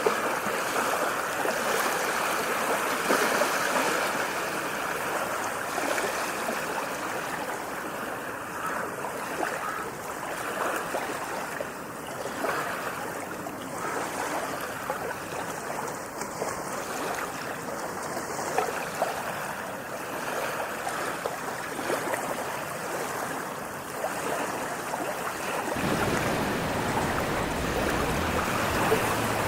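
Steady rushing water in a continuous wash of noise. Near the end, a deeper low rumble suddenly comes in under it.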